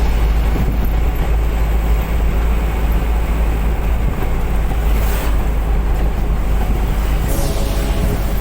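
Heavy diesel engine running steadily with a deep rumble, with two brief hisses about five and seven and a half seconds in.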